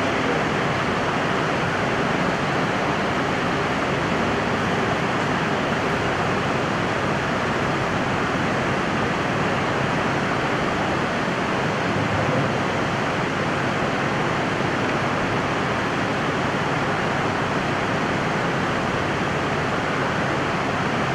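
Steady, even rushing noise that does not change, with no speech or music.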